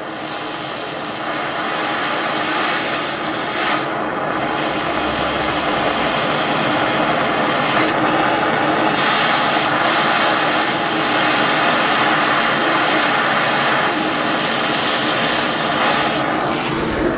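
Handheld gas blowtorch burning with a steady hissing roar as its flame heats a small steel bolt to break the Loctite free. The hiss grows a little louder over the first few seconds, then holds steady.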